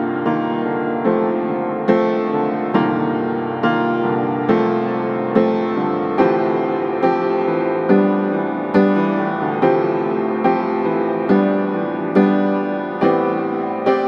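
Background music: a slow piano piece, with notes or chords struck a little more than once a second, each ringing and fading before the next.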